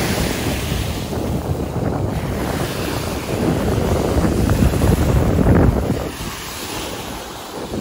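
Ocean waves washing onto a beach, with heavy wind buffeting the microphone; the roar swells loudest in the middle and eases off toward the end.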